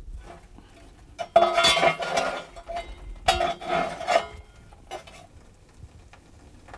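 Metallic clinking and scraping in a fireplace's embers and ash as foil-wrapped parcels are settled into the coals: two clattering bouts of about a second each, then a few small knocks.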